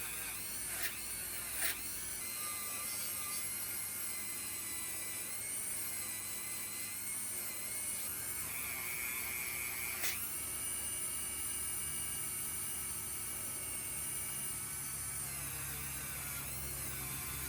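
Small high-speed rotary tool running steadily with a high whine, with a few brief clicks as it works on a pocketknife.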